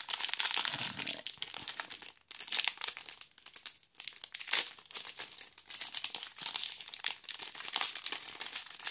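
Foil wrapper of a Panini Donruss Optic retail card pack crinkling and tearing as fingers work it open, a dense run of small crackles, the pack torn open raggedly.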